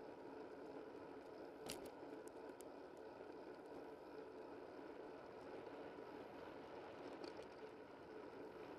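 Faint, steady rushing of wind and tyre noise from a bicycle riding along a paved road. There is one sharp click about two seconds in and a few faint ticks near the end.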